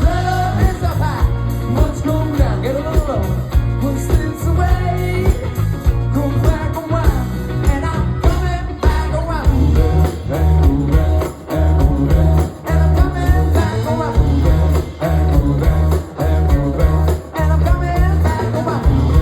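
Live rock band playing, with a singer's voice over electric guitar, bass and drums keeping a steady beat.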